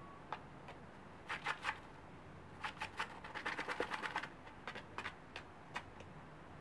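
Japanese quail dust-bathing in sand in a plastic tub: quick rustling and ticking of flicked sand and shaken feathers. There is a short flurry about a second and a half in, a longer, denser one around three to four seconds in, and scattered single ticks after.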